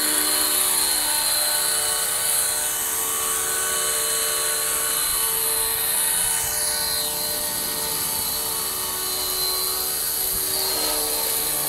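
Radio-controlled model Apache helicopter flying low, its motor and rotor giving a steady whine, with a brief falling whine a little past halfway.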